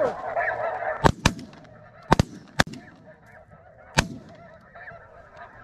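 A volley of about six shotgun shots from several hunters, in quick pairs over the first four seconds. Behind them a flock of snow geese is calling, loudly at first, then fainter after the first shots.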